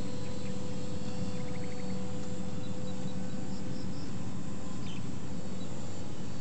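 Steady whine of a small electric RC plane motor flying at a distance, fading late on, over outdoor noise, with a few short high chirps.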